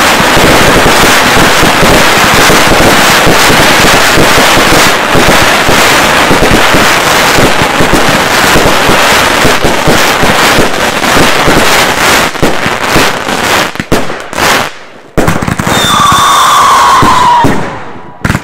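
Consumer fireworks barrage: a dense, continuous mass of crackling and banging from crackling gold star bursts. It thins to a few last bangs and stops about 14 seconds in, and a short falling whistle follows near the end.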